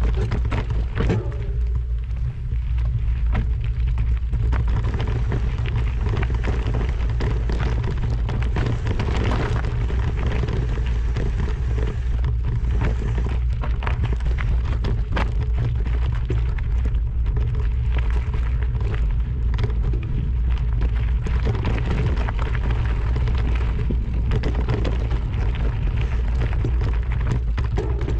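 Steady low rumble of wind buffeting the microphone, with a constant crackle and scattered clicks.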